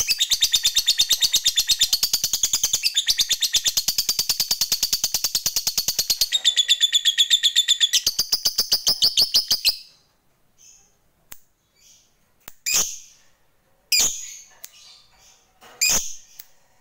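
Lovebird singing a long, fast run of evenly repeated high chattering notes, the long 'ngekek' chatter prized in fighter lovebirds. It breaks off about ten seconds in, and a few short single calls follow, one every second or two.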